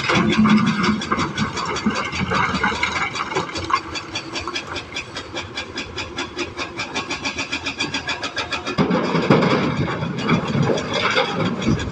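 Komatsu hydraulic excavator working, its diesel engine and machinery making a fast, even clatter. About nine seconds in, a louder, rougher rumble comes in.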